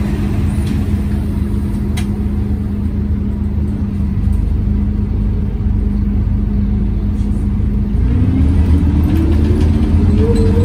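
Inside a Scania OmniCity bus: the engine cooling fan drones with a steady hum, then about eight seconds in the bus pulls away and a whine from the ZF Ecomat automatic gearbox rises steadily in pitch as it accelerates, over a louder engine rumble.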